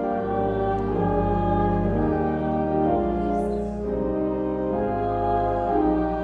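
Church pipe organ playing a slow hymn in sustained chords over a deep bass, the chords changing about once a second.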